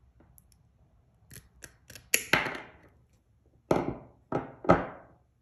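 Knipex step cut cable shears cutting through 4-gauge stranded copper cable: a few light clicks, then two loud sharp snaps about two seconds in, and three more sharp snaps near the end.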